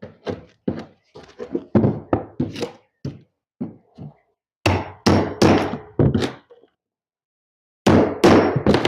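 Repeated knocks and thunks of a pry bar and nail puller being struck and levered against nails in a rotten wooden subfloor. The blows come in irregular runs, with the heaviest strikes about halfway through and near the end.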